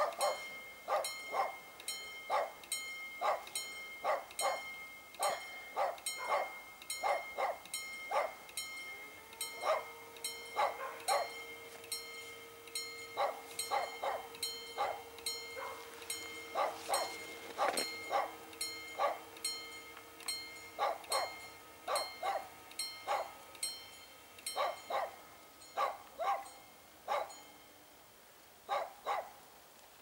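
A dog barking over and over in short, irregular volleys with brief pauses, over a few faint steady hums.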